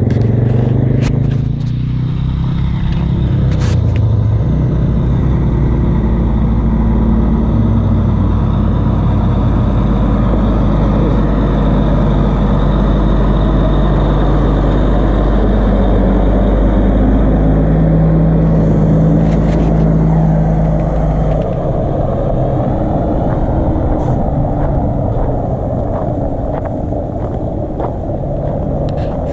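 Vehicle engine running steadily, its pitch stepping up and down several times. A few sharp clicks come near the start, and the deepest hum drops away about three quarters of the way through.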